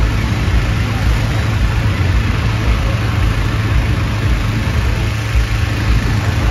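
Gas-engine balloon inflator fans running steadily, a low, even engine drone as hot air balloon envelopes are cold-inflated with air.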